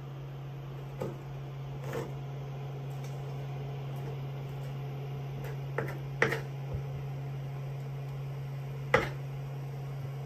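Sprat being cleaned by hand: a handful of sharp knocks and clicks from the knife and fish on a wooden cutting board and steel tray, the loudest about six and nine seconds in. A steady low hum runs underneath.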